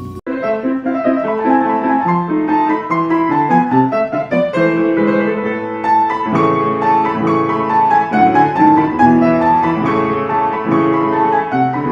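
Instrumental piano music: a continuous run of quick melodic notes over lower held notes.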